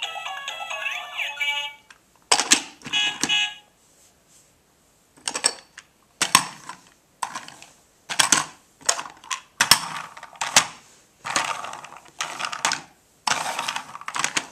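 The Fisher-Price stacking fire truck's electronic tune and sound effects play and cut off about two seconds in. After that comes a long, irregular run of short plastic clattering sounds as the toy vehicles are handled and rolled on a wooden floor.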